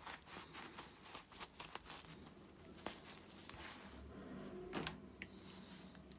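Faint rustling and rubbing of a microfiber cloth as a pair of rusty steel pliers is wiped in it, with scattered light clicks as the pliers are handled, one a little louder near the end.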